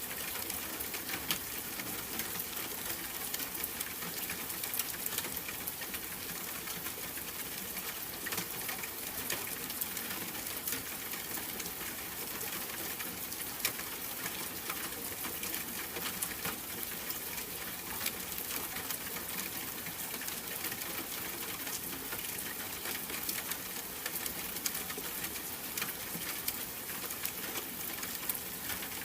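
Steady rain with scattered sharp drop ticks.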